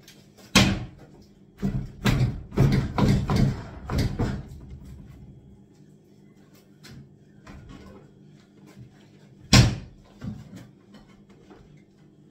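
Bangs and knocks of wooden kitchen cabinet units being wrenched loose and moved during a strip-out. A sharp bang comes first, then a run of knocks over about three seconds, and one more single bang near the end.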